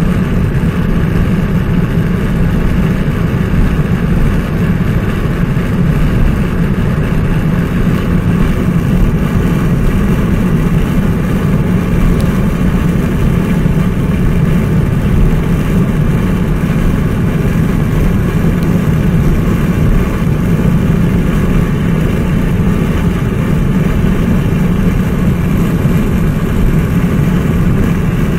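A car driving at highway speed, with a steady drone of tyre and engine noise that holds an even level throughout.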